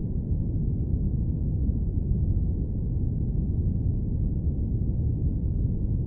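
Airplane cabin noise: a steady, low, muffled rush with no distinct events.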